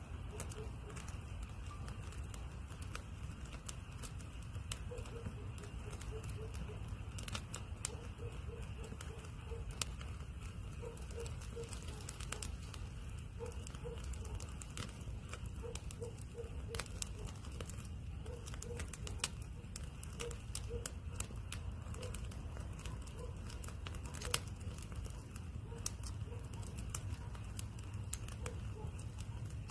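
Split wood logs burning in a homemade perforated tin-can camping fire pit, crackling with irregular sharp pops over a steady low rush of flame.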